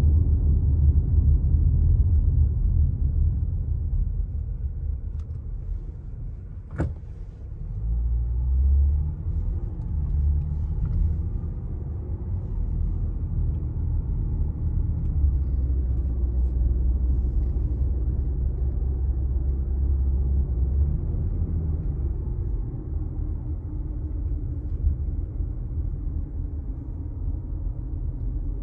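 Car interior road noise while driving: a steady low rumble, with one sharp click about a quarter of the way in.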